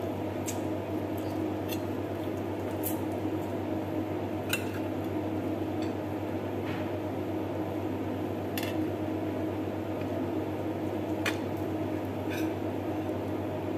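Eating by hand from a plate: about eight sharp clicks and light clinks of fingers and food against the plate, spread out at uneven intervals, over a steady low hum.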